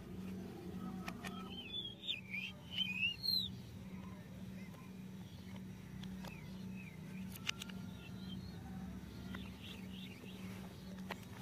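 Birds chirping in short, quick calls that rise and fall, loudest about two to three and a half seconds in and again faintly near the end, over a steady low hum. A few sharp clicks of the plastic toy helicopter's parts being handled.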